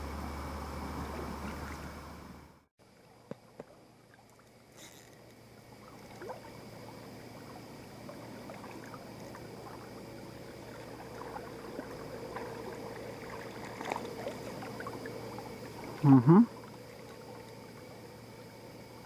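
Flowing river water, a faint steady rush, with scattered small clicks. About 16 seconds in, a brief loud double sound stands out above it.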